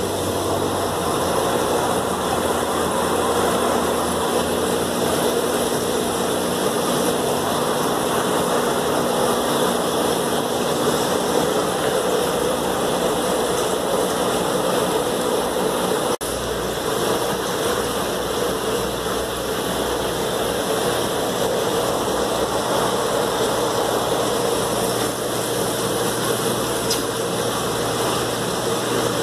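Steady motor hum under a constant hiss of air and water, from the aquariums' air pumps and filtration running. About halfway through there is a faint click, and the low hum shifts.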